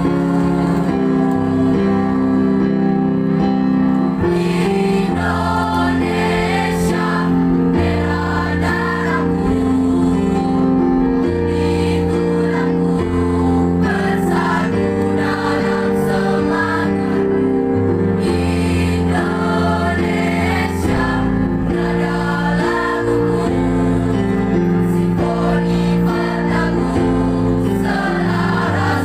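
Mixed high-school choir of girls and boys singing in parts, holding sustained chords that move together.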